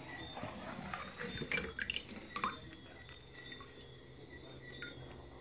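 Water splashing and dripping as raw peanuts are rinsed in a plastic blender jar and scooped out by hand. A cluster of small splashes and drips comes about one and a half to two and a half seconds in, then only faint drips.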